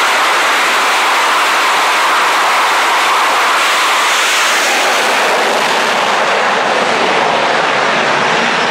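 F-18 Hornet's twin jet engines running at full power on a steam catapult, a loud, steady noise. About four seconds in the jet is shot off the deck, and over the last few seconds the sound grows duller as it leaves.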